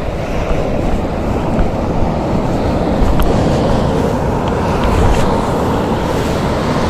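Ocean surf breaking and washing on the beach, mixed with wind rumbling on the microphone, as a steady low noise.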